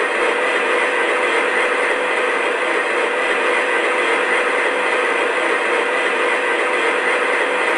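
O-gauge model diesel locomotive's onboard sound system playing a steady diesel engine idle, with no deep bass.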